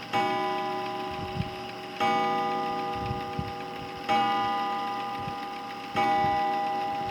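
Early-1900s Sessions mantel clock striking on its gong, four strokes about two seconds apart, each ringing on and slowly fading before the next. The steady run of strokes fits the hour count, which this clock strikes on the gong.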